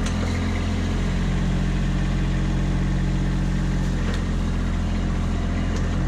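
Kubota B2601 compact tractor's three-cylinder diesel engine running steadily as the tractor drives its grapple into a pile of cut brush.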